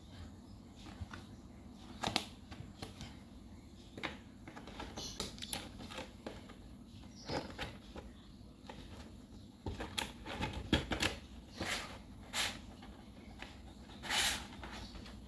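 Hard plastic panels and the clear hinged lid of a folding shoe box clicking and tapping as they are handled and snapped together: irregular sharp clicks, busiest about ten to eleven seconds in, with a longer one near the end.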